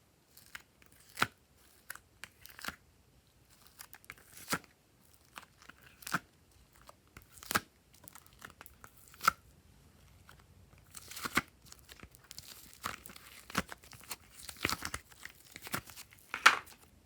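Glossy slime being stretched and squished by hand, giving sharp sticky pops and crackles. The pops come about once a second at first and grow denser and louder in the second half.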